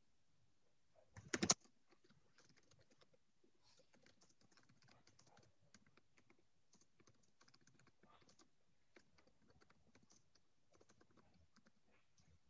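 Faint computer keyboard typing: light, irregular key clicks, with a louder knock about a second and a half in.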